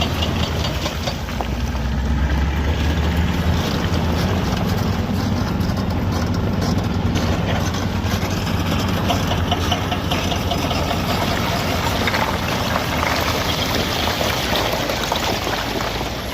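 Caterpillar D7E bulldozer's diesel engine running steadily, with a heavier low drone for the first few seconds.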